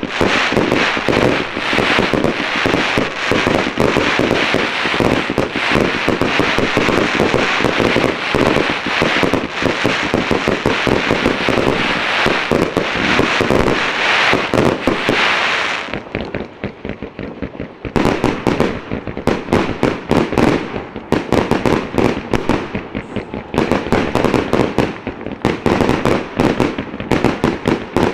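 Aerial firework shells bursting at close range, first as a dense barrage of overlapping bangs and crackling. About sixteen seconds in it eases off briefly, then comes back as a run of separate sharp bangs.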